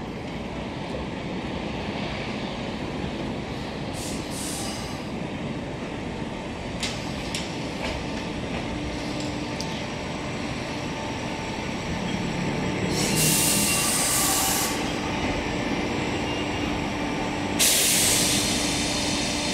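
Sanyo Electric Railway 3000-series electric train running into the platform and braking to a stop, its running noise growing louder as it draws near. There are two loud hisses, one about two-thirds of the way in and one near the end.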